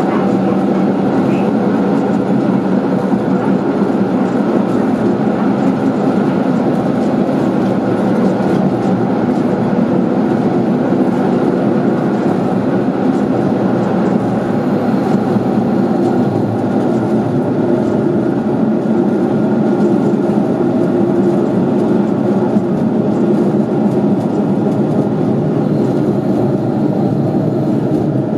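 KiHa 40 series diesel railcar under way, heard from inside the car: a steady diesel engine drone mixed with the running noise of wheels on rails.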